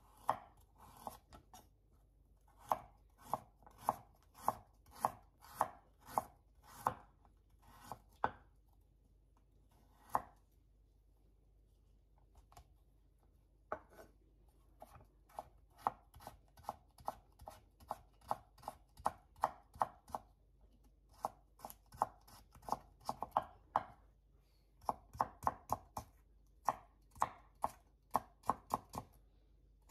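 Kitchen knife cutting a carrot on a wooden cutting board: crisp knocks of the blade through the carrot onto the board, in runs of about two to three a second broken by short pauses. The carrot is cut into slices, then into thin julienne strips.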